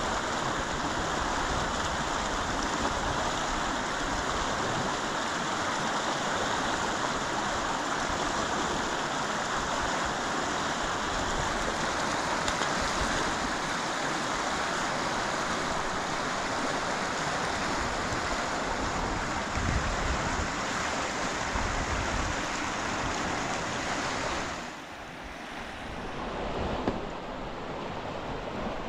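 Steady rush of running water. About 25 seconds in it drops suddenly to a quieter wash.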